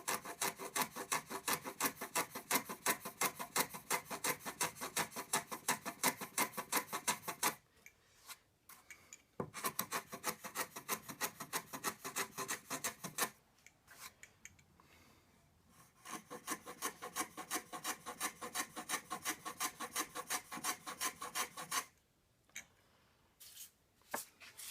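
Low angle block plane cutting a chamfer along a timber edge, in three runs of rapid, evenly spaced strokes, each stroke a short rasping shave of the blade on wood. The plane is cutting straight out of the box, without the blade having been sharpened.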